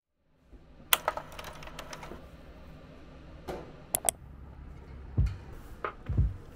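Sharp clicks and clacks of hands working a top-loading coin-laundry washing machine's lid and controls, over a low hum. About five seconds in, a music track starts with a steady kick-drum beat.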